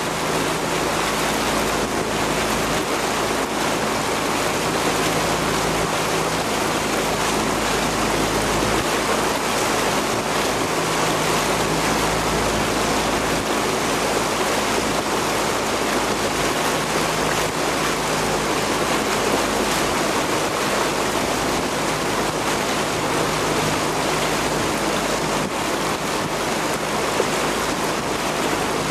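Steady rushing water and wind noise, with a faint low steady hum underneath.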